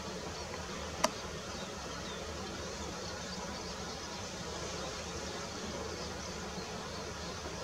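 Steady outdoor background hiss with faint high chirps here and there, and a single sharp click about a second in.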